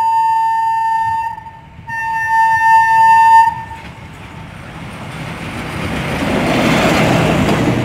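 Two long blasts of a railcar's horn, a single high note, the second blast louder. Then the railcar approaches and rolls past over the level crossing, its rumble swelling to the loudest near the end.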